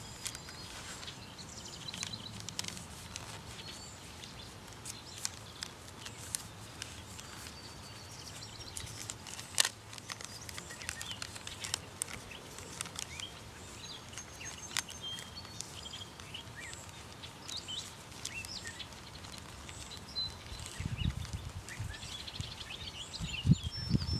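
Quiet outdoor ambience: a low steady background with faint, short bird chirps and scattered light clicks and ticks, and a few low bumps near the end.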